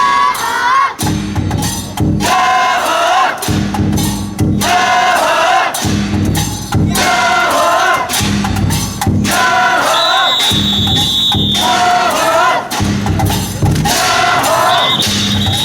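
Festival float music and chanting: a crew of voices calling out short phrases in unison, in rhythm with drum and percussion strikes. A high whistle-like tone sounds twice, held for about a second and a half each time.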